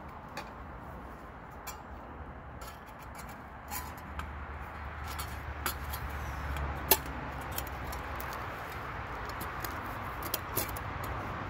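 Scattered light metallic clicks and clinks as the steel panels of a folding firebox stove are handled and fitted together, one sharper clink about seven seconds in, over a steady hiss of distant dual-carriageway traffic.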